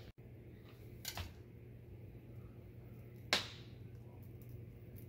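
A glass pan lid clinks sharply once, with a short ring, about three seconds in, after a lighter click about a second in, over a steady low hum.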